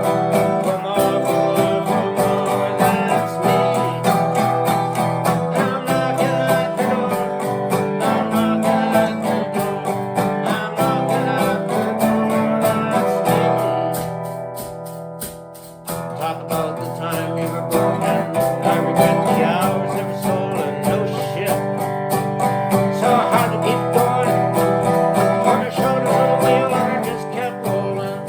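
Acoustic guitar music, plucked and strummed. It dies down about halfway through and comes back in sharply a couple of seconds later.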